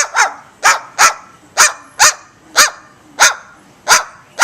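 A rapid string of short, sharp dog-like barks, about two a second, each one dropping in pitch.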